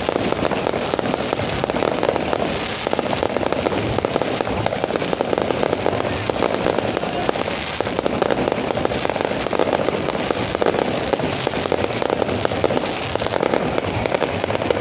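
Fireworks going off without a break, a dense crackle of rapid small bangs packed too closely to count.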